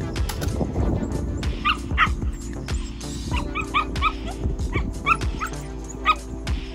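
Puppy giving repeated short, high-pitched yips while chasing a rag lure on a flirt pole, over steady background music.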